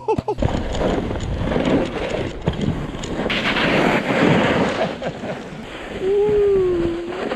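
Wind rushing over the microphone and the hiss and scrape of a snowboard and skis sliding over snow during a descent. About six seconds in, a person calls out one drawn-out, slightly falling note.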